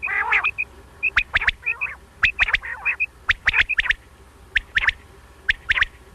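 Common quail calling: sharp three-note 'wet-my-lips' song phrases repeated about once a second, with soft paired notes between them and a short raspy call at the very start.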